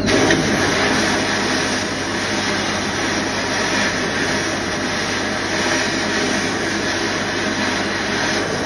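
Sandblaster blasting abrasive at a metal tap inside a blast cabinet: a loud, steady hiss of compressed air and grit with a faint low hum beneath.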